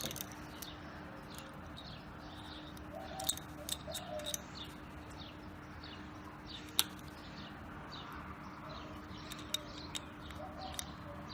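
Small birds chirping in the background: many short, quick calls repeating, with a few sharp light clicks scattered among them.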